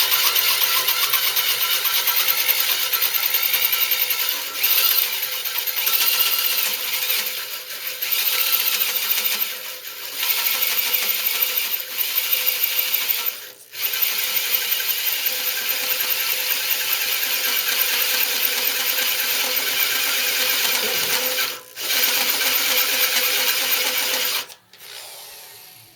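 A 1 7/8-inch bimetal hole saw in a slow-speed 1/2-inch drill cutting dry into a cast-iron mill base: a loud, harsh metallic scraping and grinding. It breaks off briefly a few times and stops shortly before the end.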